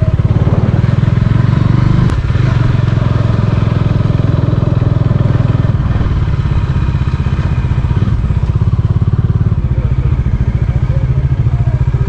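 Bajaj Dominar 400's single-cylinder engine running steadily, heard close up with a fast, even pulse.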